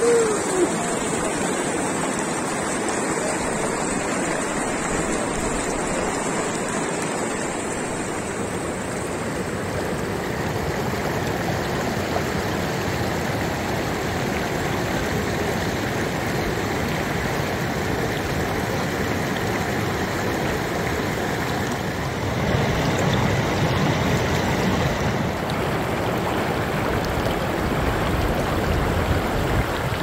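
Shallow mountain stream running fast over rocks and stones: a steady wash of rushing water, a little louder in the last third.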